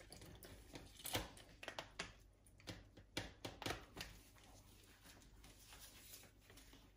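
Faint rustling of a plastic zip-top bag and light clicks from a handheld lemon squeezer being worked to squeeze lemon juice, with a few sharper taps in the first four seconds, then quieter.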